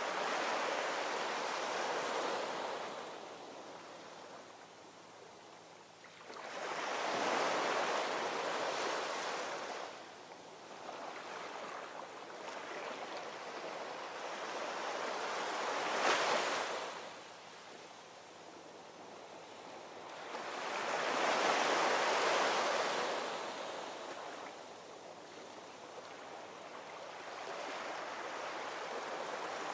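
Ocean surf: waves breaking and washing in slow swells, about one every six or seven seconds, with a sharper crash about halfway through.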